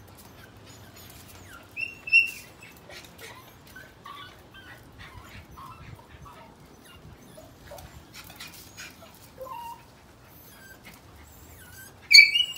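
Dog whining and yelping in excitement while jumping at an iguana out of reach on a wall, with short high cries throughout and two loud sharp yelps, about two seconds in and near the end.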